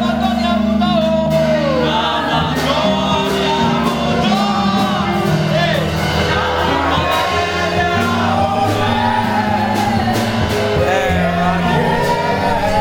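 Gospel worship music: voices singing over held, stepwise-changing low instrumental notes.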